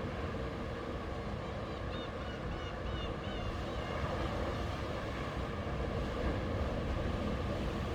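Sea surf washing onto the shore in a steady, even rumble. A few short high chirps sound about two to three seconds in.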